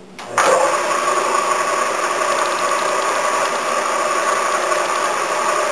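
Drill press motor switched on about a third of a second in and running steadily, spinning a center drill, with a constant motor hum and whine.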